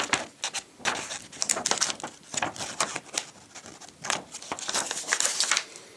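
Paper being snipped with diagonal wire cutters: a run of short, irregular crisp snips and paper crinkles.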